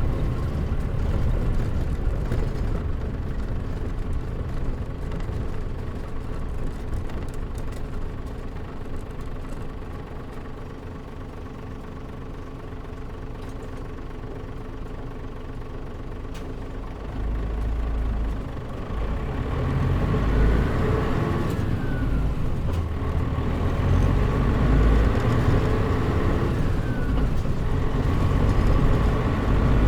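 Isuzu Erga KL-MP37JM city bus engine heard from inside the cabin. It runs quieter for a while, then about halfway through pulls away with a heavy low rumble that grows louder, its pitch rising twice as the bus gathers speed.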